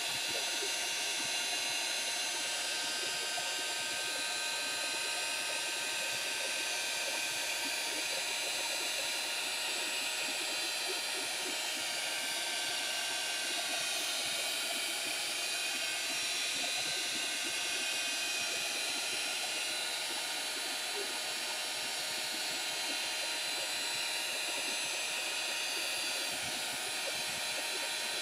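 Small handheld hot-air dryer blowing steadily, a constant hiss, as it dries wet paint on paper.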